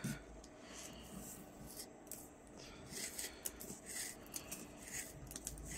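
Rattail cord being drawn through crochet stitches with a tapestry needle: faint rustling, rubbing swishes that come more often in the second half.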